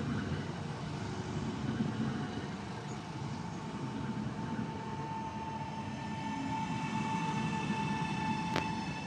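PESA Elf electric multiple unit rolling slowly along the platform, its wheels and running gear rumbling, with a steady high whine that grows stronger from about halfway through as the train slows. A single sharp click sounds shortly before the end.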